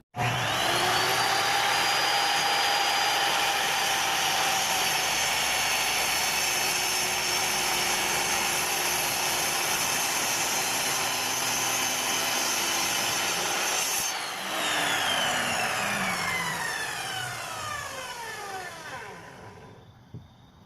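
An electric woodworking power tool is switched on and quickly spins up to speed with a rising whine. It runs steadily for about fourteen seconds, then is switched off and winds down, its whine falling in pitch over several seconds until it stops.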